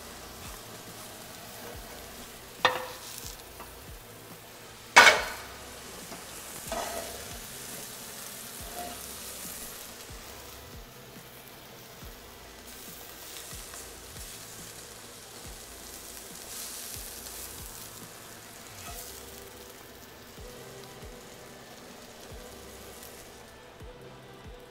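Eggs sizzling as they fry in a frying pan, a steady hiss throughout. A few sharp knocks on the pan stand out: one near three seconds in, the loudest about five seconds in, and another just before seven seconds.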